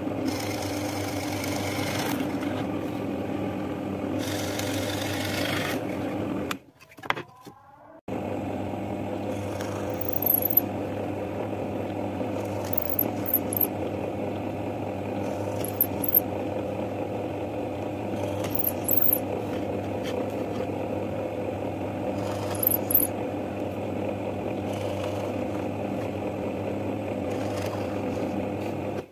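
Benchtop drill press motor running steadily while its bit bores holes in a wooden board. A brief break about seven seconds in, then short, sharper cutting bursts about every three seconds as the twist bit goes through the wood for each hole.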